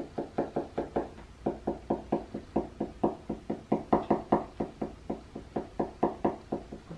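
Marker tip dotted repeatedly onto paper on a wooden tabletop, stippling texture dots: a quick, even run of knocks, about five a second, with a short break about a second and a half in.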